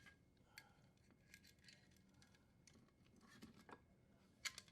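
Faint, scattered light clicks and scrapes of power wires and small fittings being handled at a dishwasher's electrical junction box. There is a small cluster of ticks a little past three seconds in, and a sharper click near the end.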